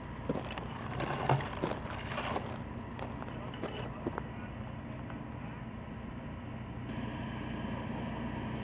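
Fire engine idling steadily in the background, a low hum. It is joined by a run of sharp crackles and clicks in the first four seconds. The hum gets a little louder about seven seconds in.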